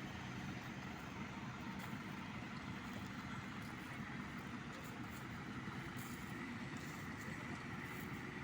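Baler machinery running steadily: a continuous mechanical drone with faint irregular ticks over it.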